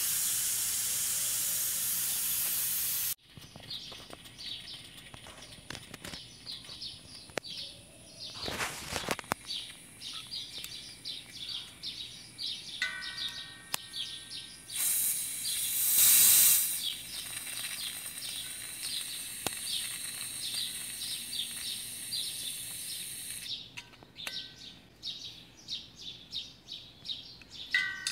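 A steady gas hiss cuts off abruptly about three seconds in. About fifteen seconds in, the bleeder (fixed liquid level) valve of a 20 lb propane cylinder, opened with a screwdriver, hisses loudly for about a second and a half: the sign that the cylinder is full. Birds chirp throughout.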